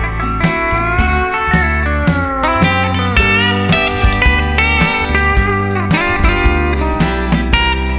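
Instrumental break of a country song: a steel guitar sliding between notes over a steady drum beat and bass.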